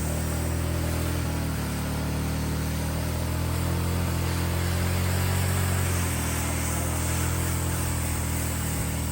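Small engine of a pressure-washing rig running steadily, its pitch shifting slightly about a second and a half in and again around six seconds, over a steady hiss.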